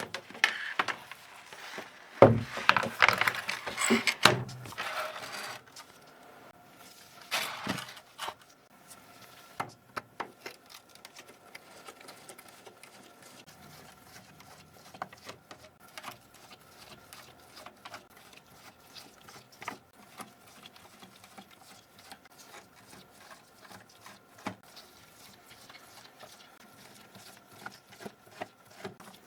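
Plastic keyboard parts being handled during cleaning: several seconds of loud clattering and rattling at the start, another short clatter a few seconds later, then many small scattered clicks and taps.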